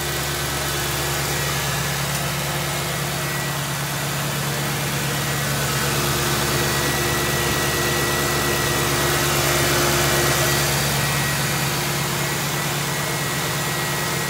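Ford Crown Victoria's 4.6-litre V8 idling steadily on fresh oil, with no ticking that the owner can hear.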